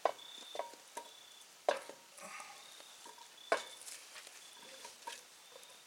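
Seasoned sliced potatoes being scraped out of a bowl into a cast-iron Dutch oven. A handful of sharp clacks of the bowl and slices against the pot, the loudest just under two seconds in and again about three and a half seconds in. Between them is a soft sliding scrape as the sticking slices come loose.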